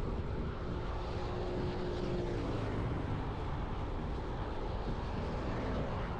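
Steady low rumble of a vehicle on the move: engine and road noise, with wind on the microphone.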